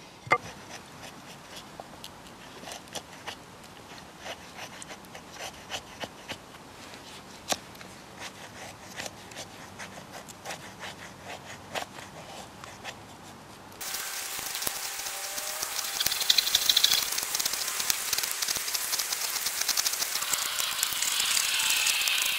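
A knife blade shaving thin curls off a stick of split firewood to make a feather stick: faint scraping strokes with small clicks. Partway through, the scraping becomes louder and hissier.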